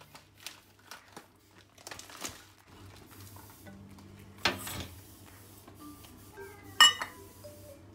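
Brown sugar tipped from a stainless steel cup into liquid in a stainless electric skillet: a soft rush and splash about halfway through, then a sharp, ringing metal clink near the end as metal knocks against metal.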